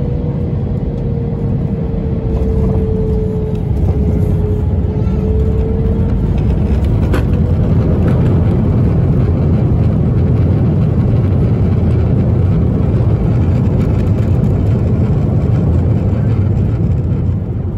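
Boeing 737-800 cabin noise during landing: a steady rumble of engines and airflow, with a faint whine that dips and rises in the first few seconds. The rumble grows louder about two and a half seconds in and eases off near the end. A single sharp knock comes about seven seconds in.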